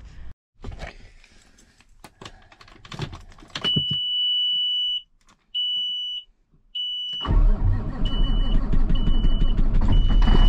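A few clicks and knocks, then a dashboard warning buzzer beeping in steady high pulses as the ignition key is turned. About seven seconds in, the truck's Caterpillar diesel engine starts and runs steadily while the buzzer keeps beeping over it.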